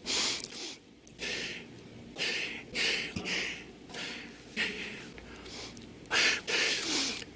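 A man sniffing and breathing hard through the nose into a close microphone: a string of about ten short, sharp sniffs and breaths, some in quick pairs.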